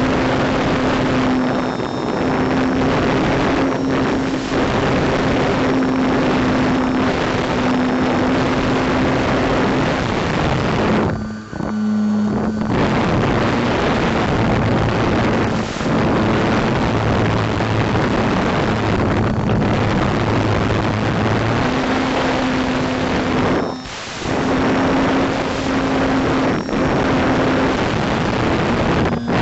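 Radio-controlled biplane's motor and propeller running in flight, heard from a camera on the plane with a heavy rush of wind over the microphone. The motor's steady tone steps up and down in pitch with the throttle, and the wind rush drops out briefly twice, about 12 seconds in and again about 24 seconds in.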